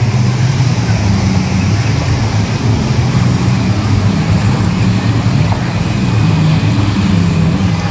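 Engine running steadily with a low, wavering drone, over a constant noisy hiss.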